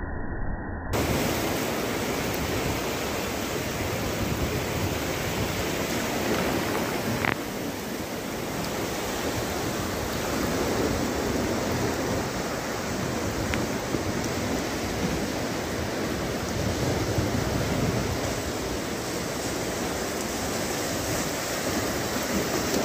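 Strong wind and choppy sea waves breaking along the shore, a steady rushing noise with the wind buffeting the microphone.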